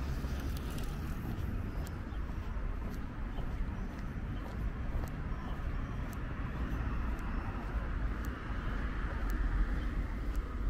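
Street ambience: a steady low rumble of traffic from the road alongside, with faint light clicks now and then.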